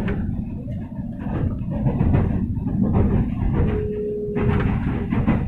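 Steady low rumble of a moving passenger train heard from inside the carriage, wheels running on the track. A brief thin steady tone sounds for about a second around the middle.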